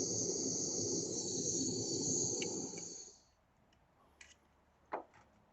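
Handheld butane crème brûlée torch flame running with a steady hiss and roar while heating silver pieces until the solder flows, then shut off about three seconds in. A couple of faint small clicks follow.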